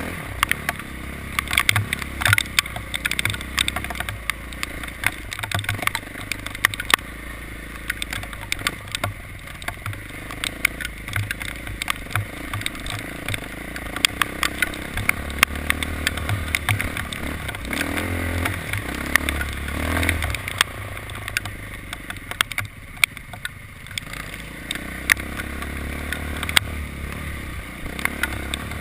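A motor vehicle running steadily under way: a continuous low engine hum with frequent short sharp clicks and knocks scattered throughout.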